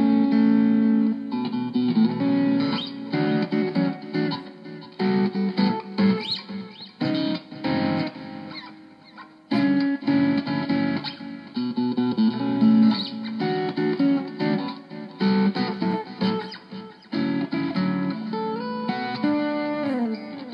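Electric guitar played through a 6505 amp head into a tiny closed-back speaker cabinet: chords and picked notes that break up into distortion early, with a note sliding down near the end.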